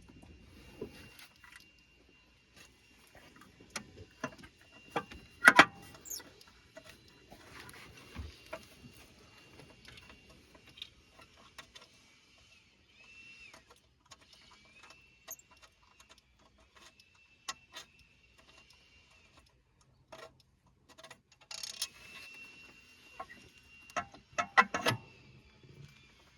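Hand tools working on an engine: scattered metallic clicks and knocks, like a ratchet and wrenches against bolts and metal parts, loudest about five seconds in and in a quick cluster near the end, with a faint steady high tone in the background.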